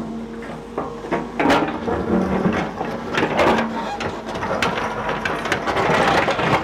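Hydraulic excavator at work: its engine runs with a steady hum while the steel bucket scrapes into the earth, with repeated knocks and clatter of soil and stones.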